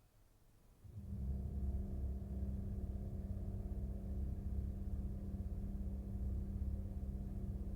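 Music played through KEF Q300 loudspeakers: low, sustained notes come in about a second in and hold steady.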